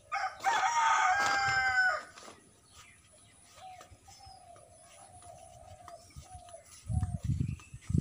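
A rooster crowing once, a single long call of about two seconds that falls slightly at the end. It is followed by a run of faint short calls repeating about once every half second, and a few low thumps near the end.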